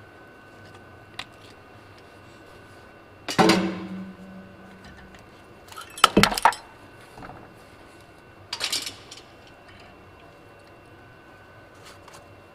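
Metal tools and parts clanking as they are handled and set down: a ringing clank about three seconds in, a quick cluster of knocks around six seconds, and another clank near nine seconds.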